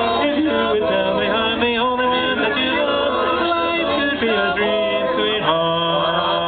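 Male vocal group singing a song in close harmony, several voices holding notes together.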